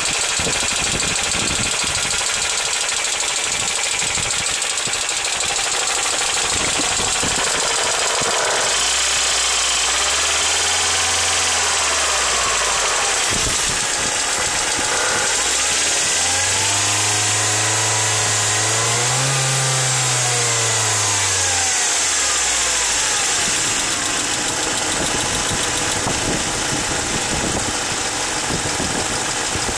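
Mercedes C200 W202's four-cylinder engine idling with a rapid knocking noise. It is revved up and let fall back twice, briefly about a third of the way in and then for longer.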